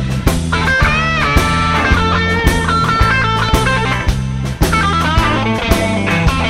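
Blues-rock song in an instrumental break: a lead guitar plays bending notes over bass and a steady drum beat.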